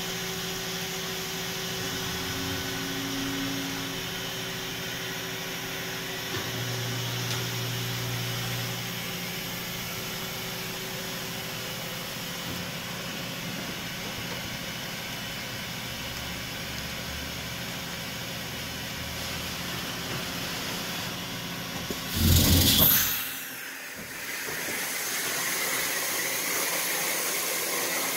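Doosan NHP 6300 horizontal machining center running through an automatic pallet change: a steady machine hum with low motor tones that come and go. About 22 seconds in there is a loud burst of noise lasting about a second, followed by a steady hiss.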